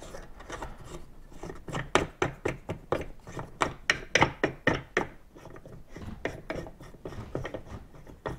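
Knobs on a Scotty 1025 downrigger gunnel mount being unscrewed by hand: an irregular string of short scraping clicks and rasps as they turn, busier in the first half.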